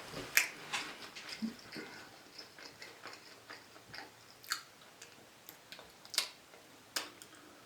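Quiet mouth sounds of someone chewing smoked ribs: a scatter of soft, sharp clicks and smacks, several in the first two seconds, then fewer and further apart.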